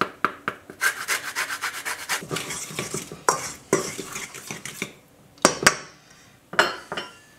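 Lemon peel being scraped fast across a handheld zester over a stainless steel bowl of flour, a rasping stroke several times a second. In the second half come a few sharp knocks and clinks as the tools are set down and the bowl is handled.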